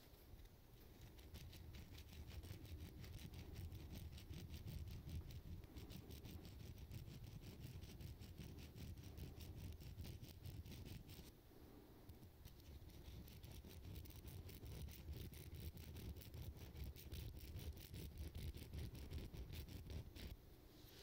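A small hand file sharpening a fishing lure's hook. It makes a long run of quick, short rasping strokes of metal on metal, pauses briefly about eleven seconds in, then carries on and stops near the end.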